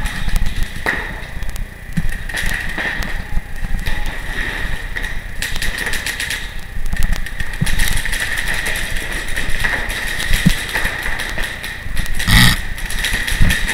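Rumbling handling noise from a camera carried by a moving paintball player, with a few scattered sharp knocks, the loudest near the end.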